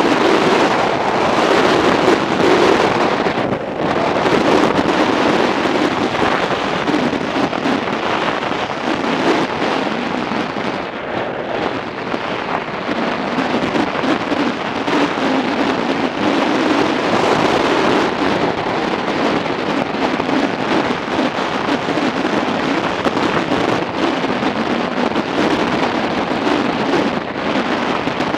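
Steady rushing wind noise on the microphone of a motorcycle-mounted camera while riding at road speed, mixed with road and engine noise.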